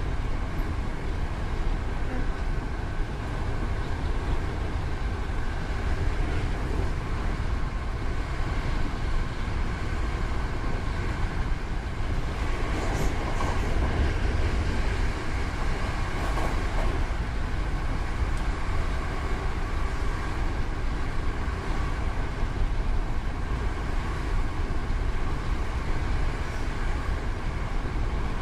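Hankyu 8000 series electric train running on the line: a steady rumble of wheels on rail with steady whining tones over it, and a few brief clatters about halfway through.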